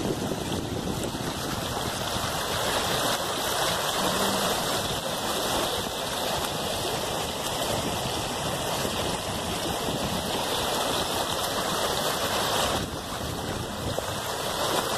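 Shallow river running over gravel and stones, a steady rush of water.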